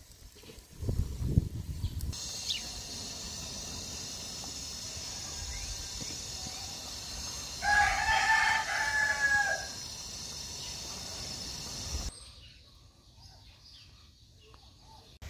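A rooster crowing once, one call of about two seconds, over a steady high hiss. Low thumps come about a second in.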